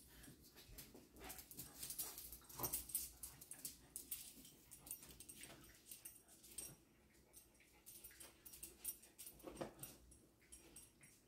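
Small dogs playing together on a dog bed: faint scuffling and rustling with short clicks, and the odd soft dog vocalisation.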